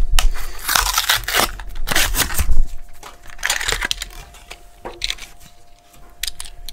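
The card backing and clear plastic blister of a Matchbox toy-car package being torn and crinkled open, in several loud rustling bursts over the first two and a half seconds. Then quieter crackles and a few light clicks as the die-cast car comes free.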